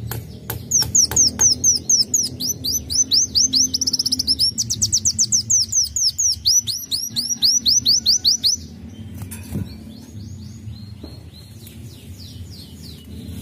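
Sunbird singing a fast run of high, sharp downslurred chirps, about four to five a second, that breaks off about eight and a half seconds in, followed by a few fainter chirps.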